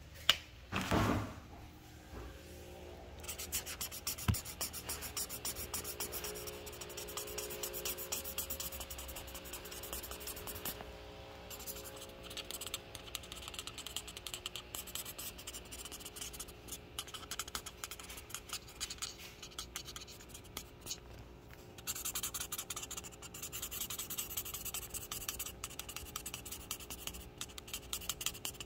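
Drawing on paper: a quick run of scratchy strokes that pause briefly a few times and get louder near the end. A dull bump about a second in comes before the strokes begin.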